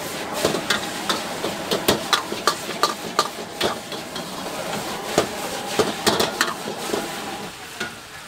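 Metal ladle and spatula knocking and scraping against a wok in irregular strikes, two or three a second, as noodles are stir-fried over a gas flame, with a steady sizzle of frying underneath. The strikes grow fewer near the end.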